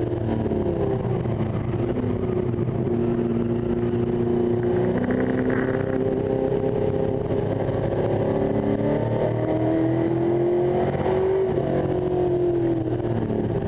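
1973 Ford XA Falcon Coupe race car's engine heard from inside the cabin at racing speed. Its pitch rises and falls repeatedly as it accelerates out of corners and lifts for the next one.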